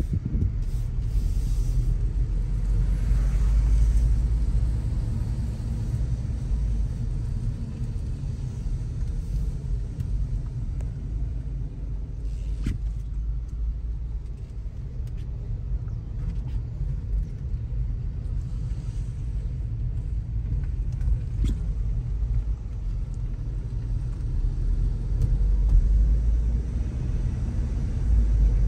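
Car's engine and tyre rumble heard inside the cabin while driving, with a few faint clicks.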